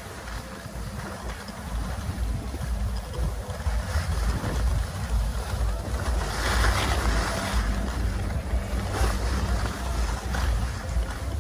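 Wind buffeting the microphone of a camera carried by a skier moving downhill, with the hiss of skis sliding on packed snow. The hiss swells about six seconds in.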